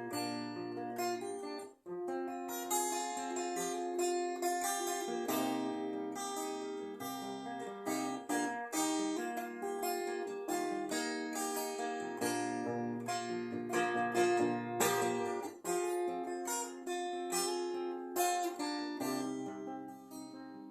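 Guitar being played: a run of plucked notes and chords, with a brief break about two seconds in.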